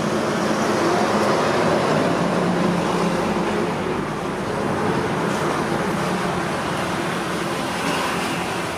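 Steady background vehicle noise, like road traffic, with a low engine hum.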